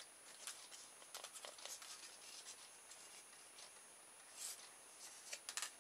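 Faint light clicks and scrapes of a plastic kit part and thin wire being handled, scattered through a near-quiet stretch, with a small cluster near the end.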